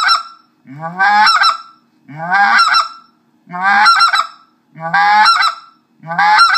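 Specklebelly goose call blown in the two-note 'woohoo' of a mature speck, with a deep, gravelly hum from the caller's voice growling under each note. About five calls in a row, one every second and a half or so.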